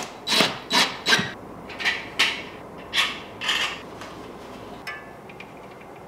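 Cordless drill/driver run in a quick series of short bursts, driving in the mounting screws of a wall switch in its electrical box; the bursts stop after about four seconds.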